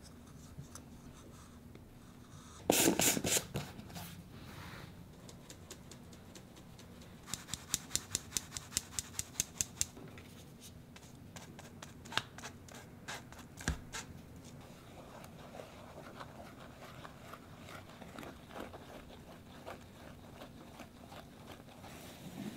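Fine-mesh metal sieve being tapped to sift flour into a glass bowl: a quick cluster of sharp taps about three seconds in, then a run of rapid even taps, about six a second, for a few seconds, and a couple of single knocks. Later a wire balloon whisk stirs the flour into the batter with a soft, steady scraping.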